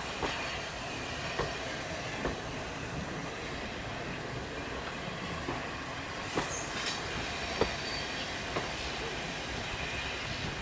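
Railway coach running along the track, heard from an open carriage window: a steady rumble and rush of air with sharp clicks at uneven intervals as the wheels cross rail joints.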